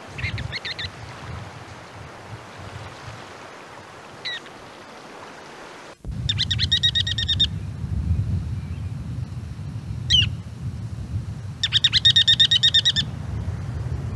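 Ruddy turnstone calling: three short, fast staccato rattles, near the start, about six seconds in and near the end, with a single sharp call note between each. Under the calls runs a steady low rumble that grows louder about six seconds in.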